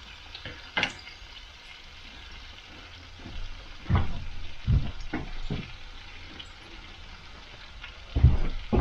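Back bacon sizzling in a frying pan, with a few sharp knocks of a utensil against the pan about a second in, several around four to five seconds in, and near the end.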